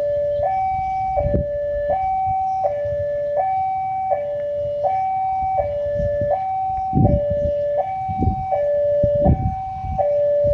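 Railway level-crossing warning alarm sounding as a train approaches: an electronic two-tone signal that alternates high and low about every three-quarters of a second. Low rumbling underneath grows stronger in the second half.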